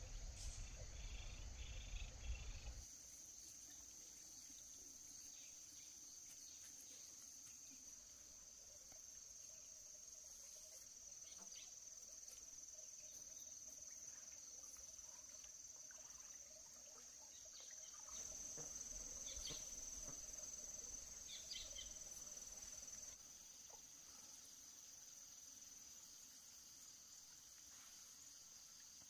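Steady high-pitched insect drone, growing louder for a few seconds past the middle. A low rumble fills the first few seconds, and a few faint chirps come near the middle.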